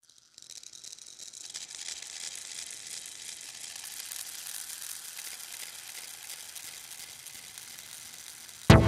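Soft crackling hiss, mostly high-pitched and steady. Near the end a techno track comes in loudly on a heavy kick drum.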